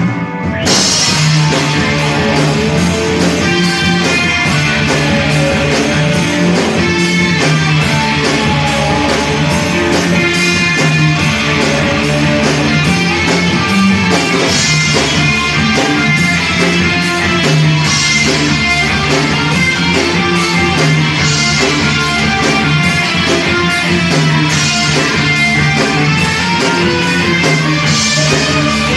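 A post-punk band playing at rehearsal: electric guitar over a steady beat on a drum kit, continuous and loud. The full band comes in under a second in.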